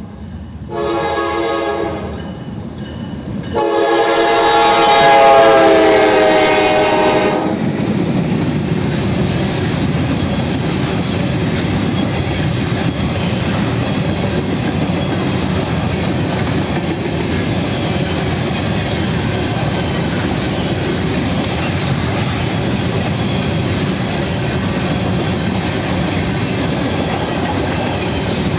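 Norfolk Southern GE diesel freight locomotive's horn sounding a short blast, then a long one whose pitch dips as it passes. It gives way to the steady rumble and clickety-clack of the locomotives and empty grain hopper cars rolling by.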